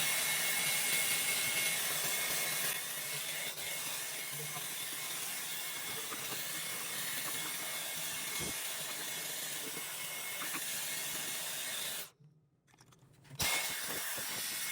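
Vacuum cleaner running steadily, a hissing whoosh with a thin whine, as it sucks up dirt. It cuts out abruptly for about a second and a half near the end, then runs again.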